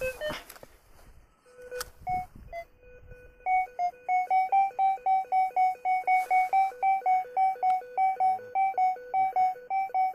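Berkut 5 metal detector's audio signal as its coil is swept over a freshly dug hole: a fast two-tone warble of alternating low and high beeps, several a second, starting about three seconds in after a few scattered beeps, the detector responding to metal still in the hole.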